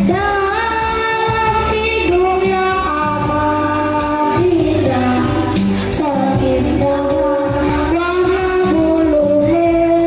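A group of children singing a song together over a backing music track, the melody moving through held notes above a steady bass accompaniment.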